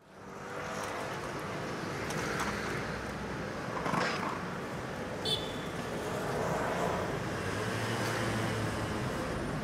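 City street ambience: a steady hum of traffic that fades in at the start, with a brief high chirp about five seconds in.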